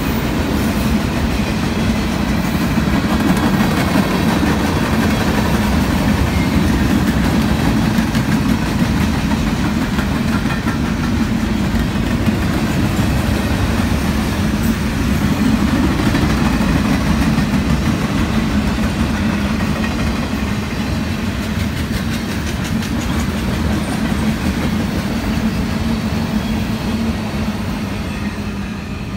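Freight train cars rolling past on the near track: a steady rumble and rattle of steel wheels on the rails, slowly fading toward the end.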